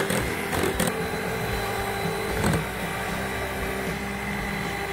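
Electric hand mixer running steadily, its twin beaters whipping a thin flour-and-milk batter in a glass bowl. A few clicks are heard in the first second and one more about halfway.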